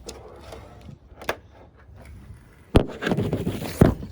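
Handling noise: three sharp knocks, the loudest a little before three seconds in, with rustling clatter between them.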